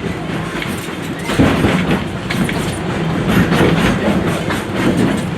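Wildlife Express passenger train running along the track, its wheels and cars clattering and rattling, louder from about a second and a half in.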